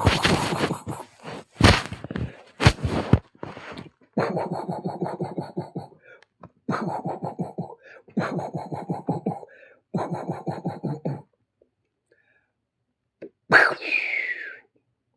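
A man making vocal sound effects of old Bollywood film fight punches ('dhishum'). First come a few sharp punch sounds, then four rapid pulsing vocal rattles of about a second and a half each. After a short pause comes a single swishing burst with a falling tone.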